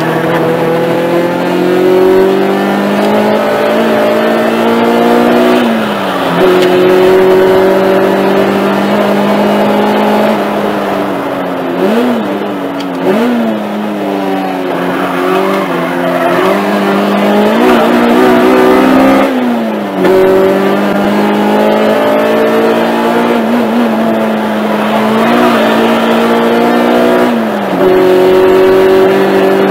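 Race car's engine at high revs, heard inside the stripped cabin on track: the pitch climbs steadily through each gear, drops and picks up again at gear changes, and wavers through a stretch of lifts and downshifts around the middle.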